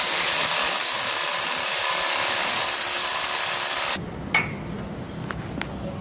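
Power grinder grinding through the welds of a steel grate, a steady high hiss that cuts off abruptly about four seconds in, followed by a single sharp knock.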